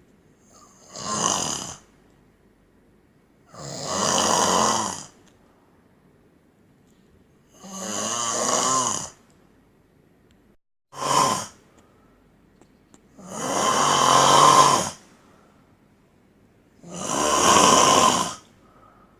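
A man snoring loudly in his sleep: six snores about every three to four seconds, each lasting a second or so, the fourth one shorter than the rest.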